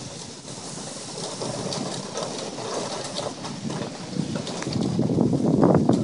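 Wind buffeting the microphone, a rough rushing noise that swells louder near the end.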